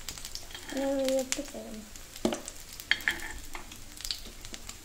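Paniyarams sizzling in oil in a non-stick paniyaram pan, with clicks and scrapes of a metal spoon against the pan as they are lifted out of the cavities.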